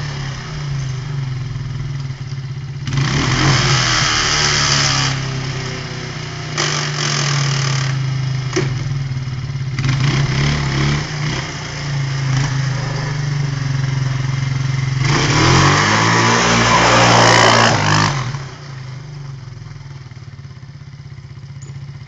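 Quad (ATV) engine revved hard in four bursts during a burnout, with a wide hiss of spinning tyres in each; the longest and loudest comes about three-quarters of the way through. The engine then drops back to a steady idle.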